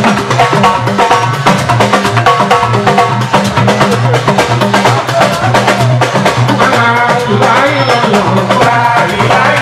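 Loud party dance music with driving drums and percussion over a steady bass line.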